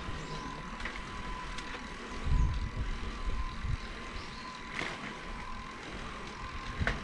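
Outdoor ambience: steady background noise with a faint steady high tone, a brief low rumble about two and a half seconds in, and a couple of light clicks near the end.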